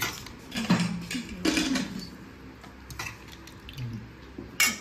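Dishes and utensils clinking and clattering, several separate sharp knocks a second or so apart.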